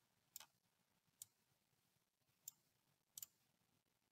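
Near silence with a few faint computer mouse clicks, the last two close together like a double-click.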